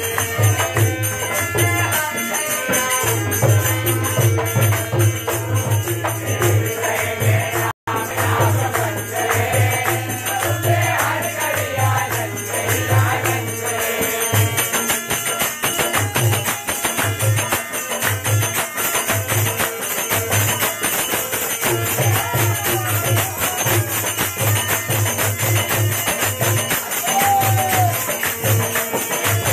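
Devotional aarti: men singing in a group to dholak drums beating a steady rhythm and constant jingling hand percussion. There is a split-second dropout in the sound about eight seconds in.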